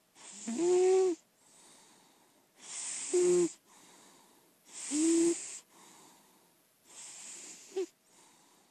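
Siamese cat snoring in her sleep: four loud, wheezy snoring breaths about two seconds apart, each with a pitched whistle, and a softer breath between each pair.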